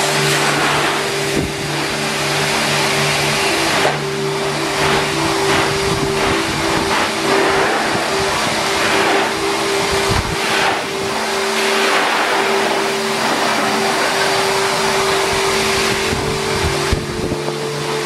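Numatic Henry Wash wet vacuum cleaner running steadily, its motor hum over a loud rush of air as the floor tool is worked over a wet floor.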